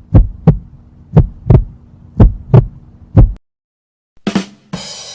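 Heartbeat sound effect: paired lub-dub thumps, about one beat a second, stopping about three and a half seconds in. Near the end, a short burst of noise and then a hissing swoosh begin the next effect.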